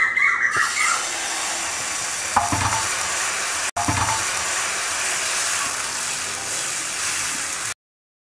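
Dosa batter sizzling on a hot honeycomb-textured stainless steel tawa as it is spread in circles with the back of a ladle. The sound breaks for an instant a little before halfway and cuts off suddenly near the end.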